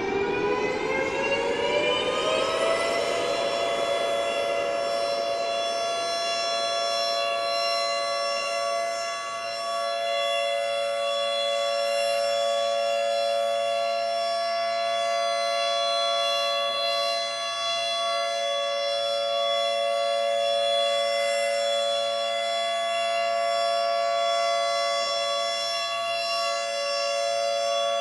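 Siren-like emergency alert alarm (a Canadian alternate EAS alarm). It rises in pitch over about the first three seconds, then holds a steady chord of several tones.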